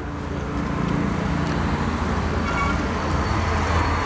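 Road traffic noise with a motor vehicle's engine humming close by, getting a little louder toward the end.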